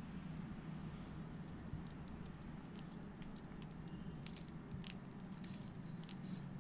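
Small metallic clicks and clinks of split-ring pliers and a steel split ring being worked onto a leader-wire loop: an irregular run of quick ticks starting about a second in, over a steady low hum.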